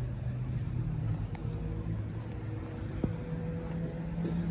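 Road traffic: a motor vehicle engine's low, steady hum, with a couple of fainter higher tones joining about a third of the way in, and a single sharp click about three seconds in.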